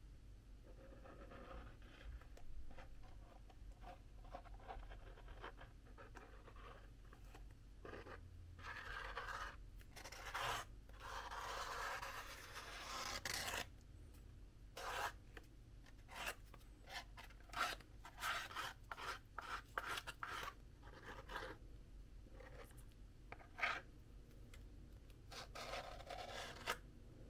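Cardboard being handled, with pieces rubbing and scraping against each other. A longer scrape comes in the middle, then a run of short taps and clicks.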